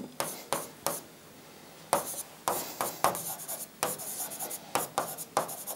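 A pen writing on the screen of an interactive display board: irregular light taps and short scratchy strokes as words are written out.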